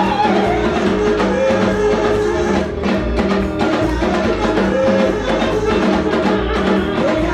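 Live church music with a steady drum beat and held keyboard or instrumental notes.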